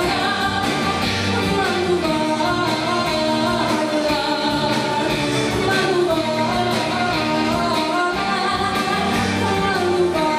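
A live band playing, with a woman singing over hollow-body electric guitar, electric bass, keyboard and drum kit keeping a steady beat.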